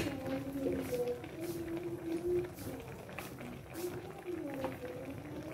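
Fish paksiw in vinegar broth simmering in a stainless pan, with scattered small bubbling pops. There is a sharp click right at the start, and a faint voice in the background.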